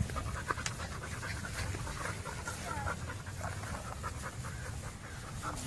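An animal panting in short, irregular breaths, with a few faint squeaky whines.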